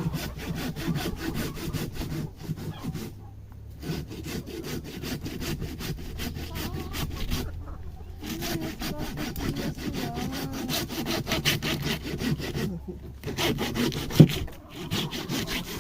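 A saw cutting through a pig carcass in continuous rasping strokes, with two short pauses. There is a sharp knock near the end.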